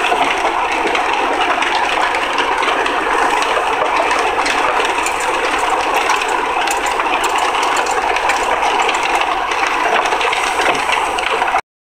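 Steady driving noise, road and engine together, from a 2003 Honda Accord's 3.0 L V6, an engine throwing cylinder-misfire codes P0300–P0306. The noise cuts off suddenly near the end.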